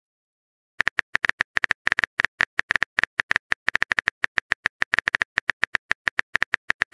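Phone keyboard key-tap sound effect: a rapid run of short, even clicks, about eight a second, starting about a second in, as a text message is typed out letter by letter.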